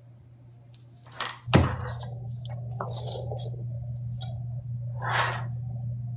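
Motorized cat wand toy running with a steady low hum that gets louder after a sharp knock about a second and a half in, with short scuffling rustles as the kitten grabs at the feather lure.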